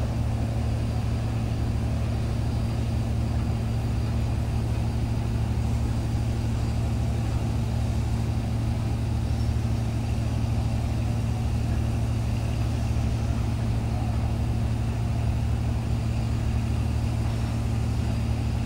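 Heavy marine diesel engine running steadily, a deep even hum that holds the same pitch and level throughout.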